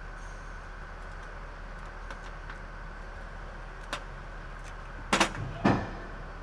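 Steady mechanical hum with a faint steady whine, over which come a few light clicks and then two louder, short metallic clatters about five and a half seconds apart from the start, a half second apart from each other, like metal parts or tools being handled during work on alternator wiring.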